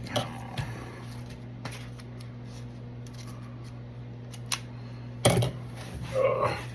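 Hands handling a mail package and trading cards: scattered small clicks and rustles, with a sharp knock about five seconds in, over a steady low electrical hum.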